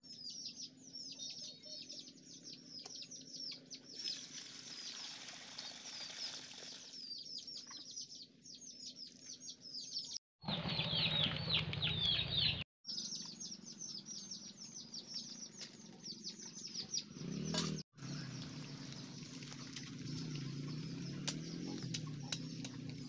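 Small birds chirping rapidly and without a break in high, falling notes, with a couple of seconds of louder rustling and scraping about halfway through.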